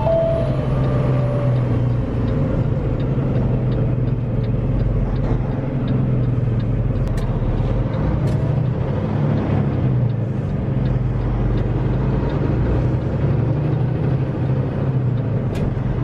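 Semi truck's diesel engine running at a steady cruise, heard from inside the cab, with a constant low drone and road noise.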